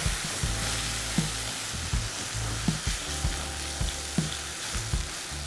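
Boiled toor dal and chilli-tomato seasoning sizzling in a non-stick kadai while a spatula stirs and mashes it and water is poured in, a steady sizzle with soft knocks of the spatula against the pan every half second to a second.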